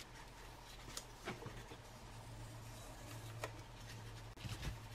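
Quiet room with a steady low hum, and a few faint soft clicks and rustles as a wrapped chocolate bar is picked up and handled.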